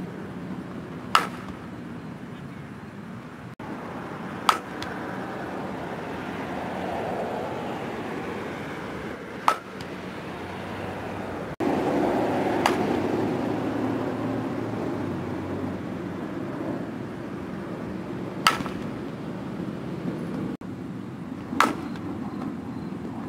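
Fastpitch softball bat hitting tossed balls: a sharp crack about five times, a few seconds apart, over a steady background rumble.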